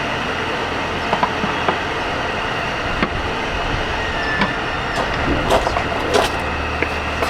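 A steady background noise with a few short metallic clicks and knocks, hand tools working on the skid plate bolts under the truck.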